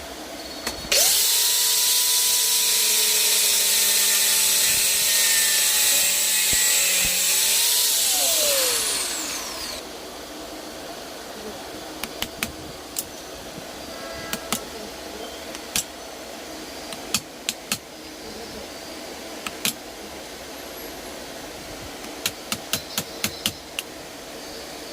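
Bosch GSR 120-Li cordless drill running at a steady speed for about seven seconds, then its pitch falls as it spins down and stops. A scattered series of sharp clicks follows.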